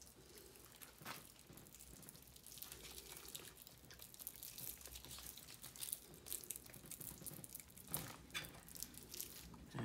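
Faint crinkling of a plastic MRE spread pouch, likely the peanut butter, being torn and squeezed out by hand, with a few soft clicks.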